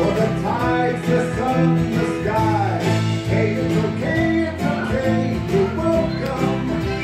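A recorded song playing: a sung melody over guitar and a steady bass line.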